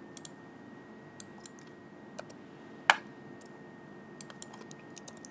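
Typing on a computer keyboard: scattered, irregular key clicks, one louder stroke about three seconds in and a quicker run of keys near the end. A faint steady hum and a thin high tone lie underneath.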